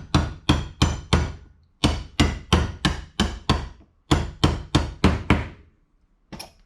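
Hammer tapping a metal drift to drive the needle adjustment assembly out of a 1973 Triumph TR6 carburetor body, sharp metal-on-metal strikes about three a second. They come in three runs separated by short pauses, with one last tap near the end.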